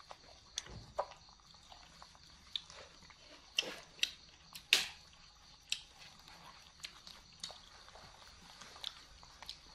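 Baby monkeys biting and chewing cobs of boiled corn: irregular short, sharp clicks and crunches, the loudest a little under five seconds in.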